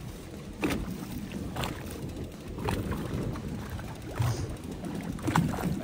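Small fishing boat at sea: a steady low rumble of wind and water, with five short knocks spread irregularly through it.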